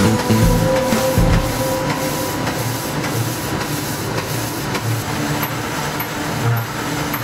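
Printing press machinery running: a steady mechanical hiss and clatter with a low rhythmic throb about twice a second.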